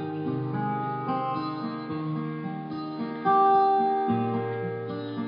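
Music led by a strummed acoustic guitar, with held chords changing every second or so.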